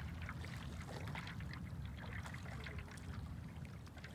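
Paddleboard paddles dipping and pulling through calm water, with water trickling and dripping off the blades in many small scattered splashes, over a low steady rumble.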